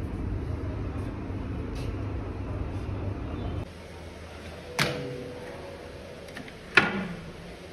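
Steady splashing of an indoor rock-style water fountain, cut off abruptly about three and a half seconds in. Then two sharp knocks from an extendable dining table's slide mechanism being worked, the second louder, the first followed by a short metallic ring.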